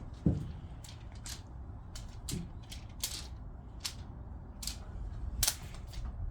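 Kashakasha crinkle cat-teaser toy being swished and shaken, giving a string of short, sharp crinkly rustles at irregular intervals. A single dull thump about a third of a second in is the loudest sound.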